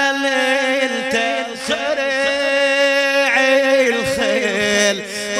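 A male reciter singing a Husseini latmiya chant in the old Husseini melodic style, holding one long ornamented note for about three seconds, then bending it through quick falling turns.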